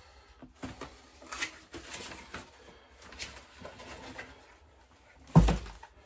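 Handling noise from unpacking a boxed replacement ignition module: cardboard rustling and light knocks, then one loud thump a little over five seconds in.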